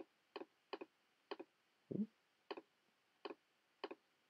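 A series of computer mouse clicks, each a quick double tick of press and release, about one every half second, as faces and options are picked on screen. About two seconds in there is one duller, lower thump.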